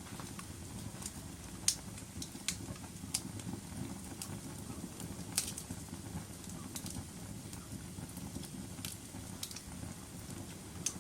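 Wood fire burning in a fireplace: a steady low rumble of flames with sharp crackles and pops at irregular intervals, the loudest pops near two seconds in and about five seconds in.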